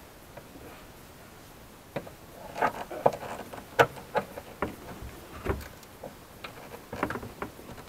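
Irregular light clicks and taps of a flat tool prying at the plastic push-in tabs that hold a car's trunk trim panel. They start about two seconds in.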